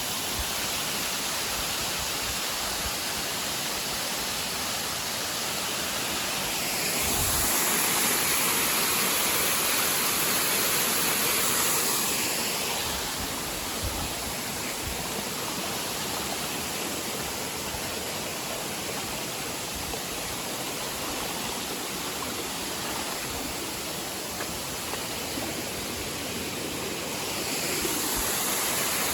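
Waterfall rushing: a steady roar of falling water, growing louder for a few seconds about a quarter of the way in and again near the end.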